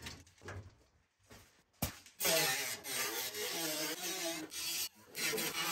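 Sheet-metal panels of a 1967 Chevy C10 cab scraping and rubbing against each other as the panel is handled from behind. It begins with a few short scrapes and a sharp knock just before two seconds in. Then comes about three seconds of continuous grating scrape with a wavering squeal, and one more short scrape near the end.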